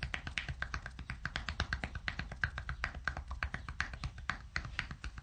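Massage tapotement: two loosely closed fists with the palms turned up, beating a bare back by turns in 'supinerende kloppen' (supinated beating). It sounds as a fast, even patter of soft hits, about ten a second.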